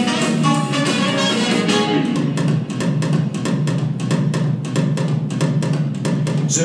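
Recorded swing-style music in an instrumental passage: guitar over a drum kit keeping a steady fast beat, with no singing.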